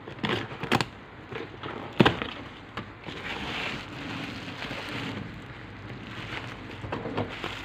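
Packaging of a phone LCD screen being handled and opened: a few sharp clicks and knocks, the loudest about two seconds in, with a stretch of rustling in the middle.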